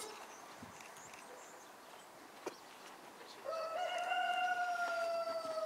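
A rooster crowing once, starting about three and a half seconds in: one long call held for over two seconds that slowly drops in pitch.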